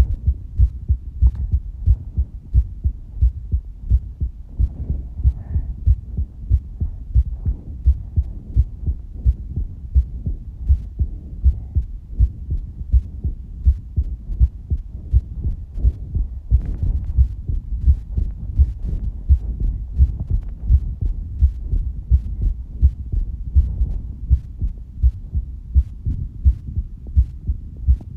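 A human heartbeat: low thumps repeating in a steady, even rhythm.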